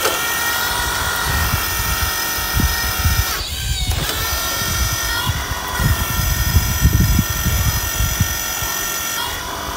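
Large remote-control excavator working hard ground, its motors whining steadily while the boom and bucket move, with irregular low knocks and scraping from the bucket in the dirt. The whine drops out briefly a few seconds in, then resumes.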